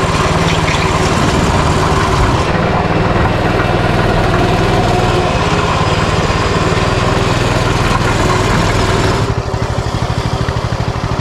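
Small gasoline dirt bike engine running steadily at an even low pitch, without revving. About nine seconds in the sound turns thinner and more pulsing.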